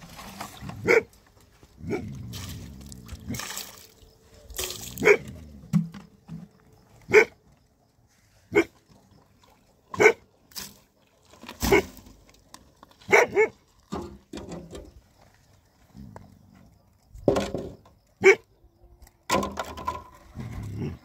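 A dog barking: single short barks, a dozen or so, spaced one to two seconds apart.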